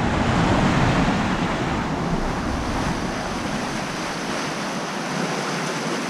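Rough sea washing against a rocky shore: a steady rush of surf, with wind rumbling on the microphone.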